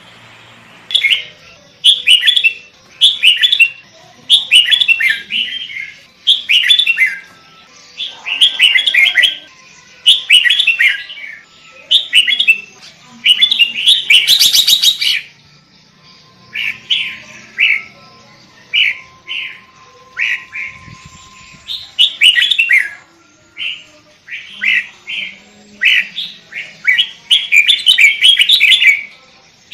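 Sooty-headed bulbul singing vigorously: short, bubbly chirping phrases repeated about once a second, with one harsher burst about halfway through.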